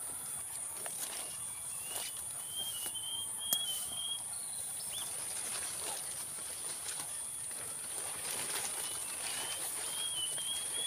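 Outdoor ambience: a steady high-pitched insect drone, with a bird singing a quick string of short chirps about two seconds in and again near the end, and a few faint clicks.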